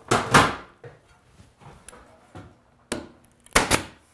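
Pneumatic nail gun firing small nails through crown molding into a wooden cabinet case: sharp shots, two at the start and three more close together near the end.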